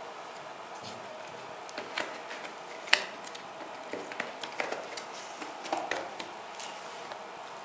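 Hands unpacking a tablet's retail box: irregular clicks, taps and rustles of cardboard and packaging being handled, with one sharp tap about three seconds in and a busier stretch a little later.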